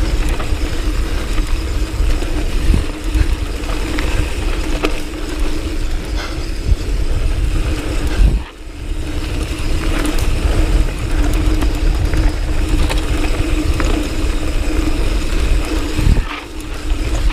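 Mountain bike riding fast down a loose dirt trail: wind rushing over the camera microphone, the tyres running on the dirt, and scattered knocks as the bike hits bumps. The noise drops away briefly about halfway through.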